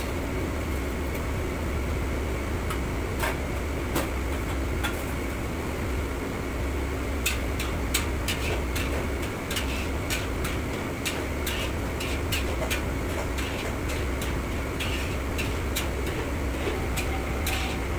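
Metal ladle clanking and scraping against a wok in quick irregular strikes, sparse at first and coming thick and fast from about seven seconds in, over the steady low hum of commercial kitchen burners and extraction fans.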